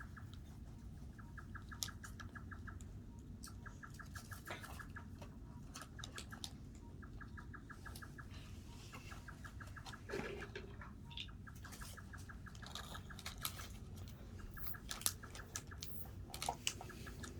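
Scattered clicks and scratches from a squirrel, over faint evenly repeated calls of an Oriental scops owl. Bursts of a rapid pulsing trill, each about a second long, recur throughout.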